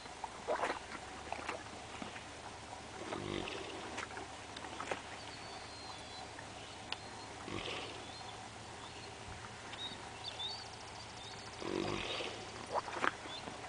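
A Haflinger gelding snoring while it naps: three low snores, evenly spaced about four seconds apart.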